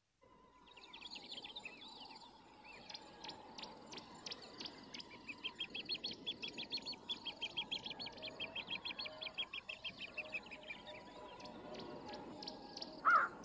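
Birds calling: a long run of high chirps repeated about three or four times a second, then a crow cawing near the end.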